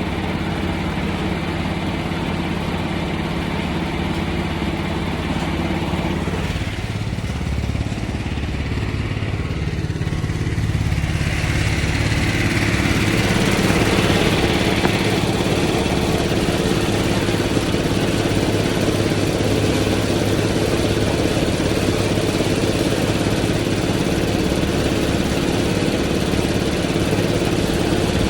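An engine running steadily. Its note changes about six seconds in, and from about eleven seconds on it grows louder and brighter.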